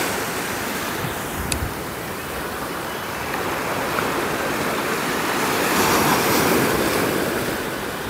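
Sea surf breaking and washing up a sandy beach, swelling louder about six seconds in, with wind buffeting the microphone.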